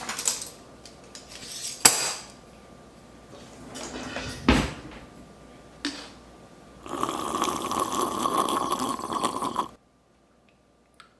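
Plastic shaker bottle and straw handled, with several clicks and knocks and a heavier thump in the middle. Then about three seconds of slurping as a thick protein shake is sucked through the straw, which cuts off suddenly.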